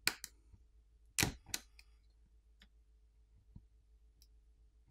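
Sharp clicks of flex cable connectors being popped off the Realme 8s 5G's board with a plastic pry tool: two pairs of loud clicks in the first second and a half, then a few faint ticks.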